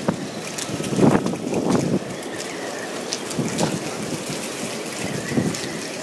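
Wind of over 30 knots buffeting the microphone, with a strong gust about a second in and a smaller one near the end, and scattered light ticks from the rigging of moored sailboats.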